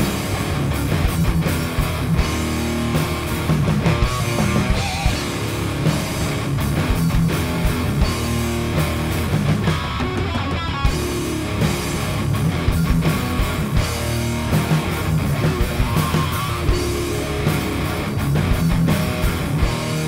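Rock music with electric guitar and a steady drum beat.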